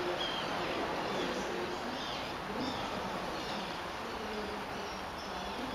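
Wetland ambience: a steady background hiss with a low buzzing coming and going and faint, short chirps of distant small birds scattered through.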